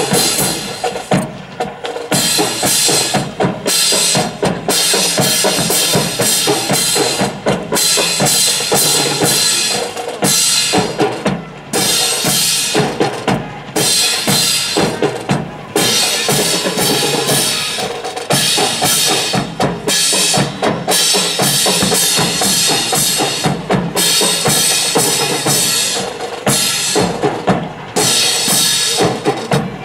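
Marching snare and bass drums playing a fast drum cadence, with a few short breaks between phrases.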